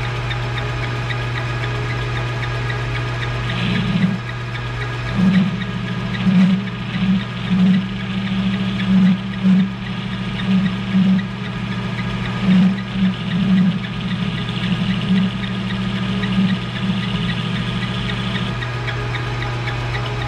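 Small belt-driven metal lathe running with a steady motor hum, while a radius form tool is fed into the spinning bar stock to cut a rounded top on a knob. From about four seconds in until near the end, the cut adds an uneven, pulsing noise that swells and fades many times.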